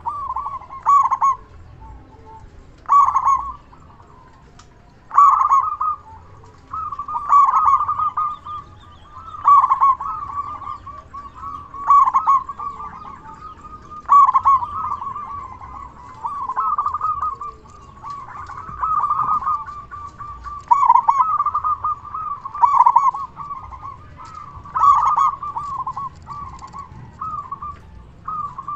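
Zebra dove (perkutut) cooing its song over and over, one phrase about every two seconds, the phrases running closer together in the second half.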